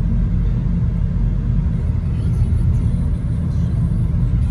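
Steady low rumble of a car driving along, its engine and tyre noise heard from inside the cabin.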